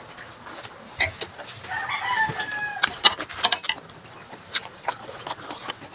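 A rooster crows once, about two seconds in, a single held call lasting about a second. Several sharp mouth clicks and smacks from someone eating are heard close by, some of them louder than the crow.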